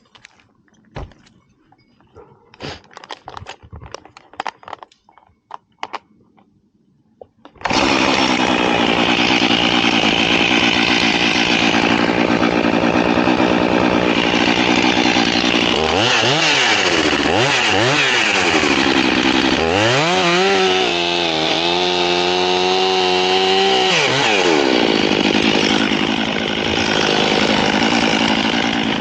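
A few light clicks and knocks, then a chainsaw starts abruptly about a third of the way in and runs at high speed. Its pitch sags and recovers twice as it slows under load, cutting into the dead loblolly pine.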